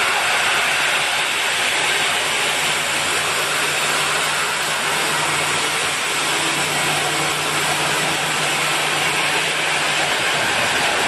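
CNC machine tool running as it cuts iron: a steady hissing machine noise, with a low hum underneath that drops out near the end.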